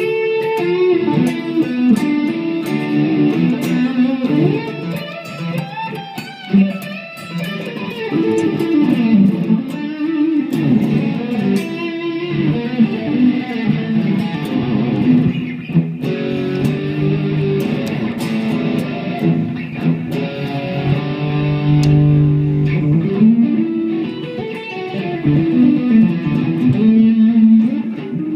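Epiphone Les Paul Custom electric guitar played through an overdriven amp: a run of picked riffs and single-note lines, the notes changing steadily throughout.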